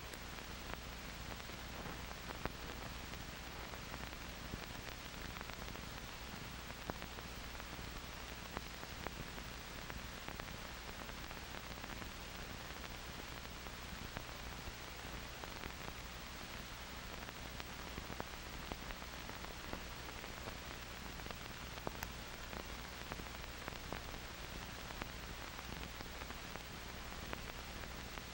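Steady hiss with scattered clicks and crackles over a low hum: the background noise of an old 1940s film soundtrack, with no narration or music.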